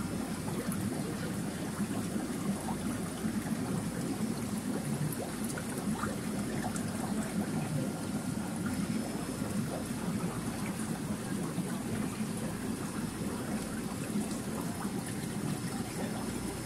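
Aquarium filter running, with a steady trickle of moving water.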